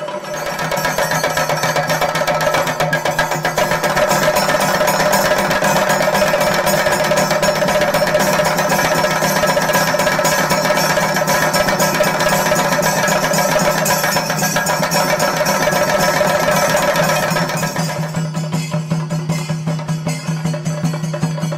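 Chenda melam: a group of Kerala chenda drums beaten with sticks in fast, dense rolls over a steady held tone. About eighteen seconds in the drumming thins out to a sparser beat.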